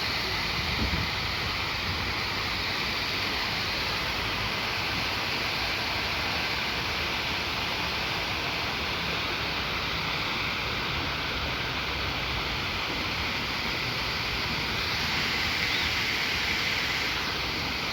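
Waterfall running: a steady rush of falling water that does not let up.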